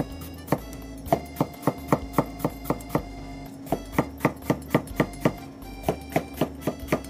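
Kitchen knife making quick crisp cuts into a cucumber on a wooden cutting board, about three to four strokes a second with a short pause a little past the middle: close scoring cuts that stop short of cutting through, for an accordion cut. Background music plays underneath.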